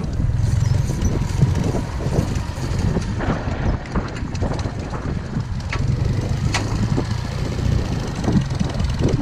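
Engine of a WWII BMW motorcycle-and-sidecar combination, a flat twin, running steadily at low speed, with a few sharp clicks on top.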